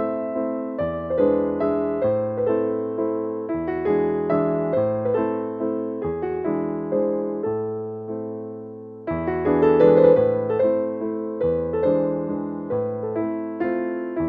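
Background piano music, its notes ringing and fading over a low bass note that changes every two seconds or so. It grows louder suddenly about nine seconds in.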